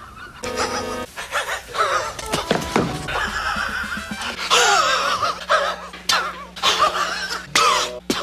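A man's high, wheezing laugh, heard in several short clips cut together abruptly, over background music.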